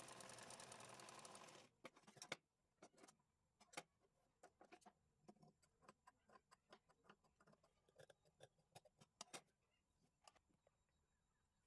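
Sewing machine running steadily with the fabric strip feeding through, cutting off about one and a half seconds in. Then scattered light clicks and taps as the strip is pulled free and handled.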